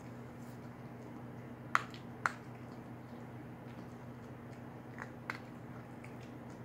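A small dog foraging for food on a fabric feeding mat: a few faint sharp clicks, in two pairs about half a second apart, over a steady low hum.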